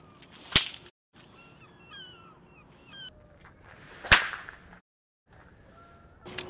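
Two sharp swishes of a sea fishing rod whipping through the air as it is cast, about three and a half seconds apart. Faint bird chirps come between them.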